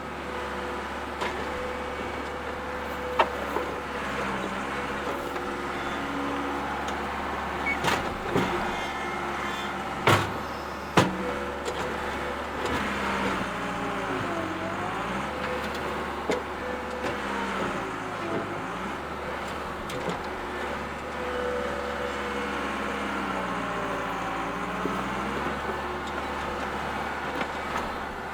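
Bobcat skid-steer loader engine running steadily, with a few sharp metallic knocks in the first half. Three times in the second half the engine's pitch sags and then comes back up.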